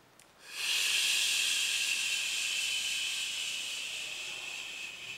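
A long hissing breath blown out through the teeth, a controlled exhale as the hands press into the abdomen. It starts about half a second in and slowly fades.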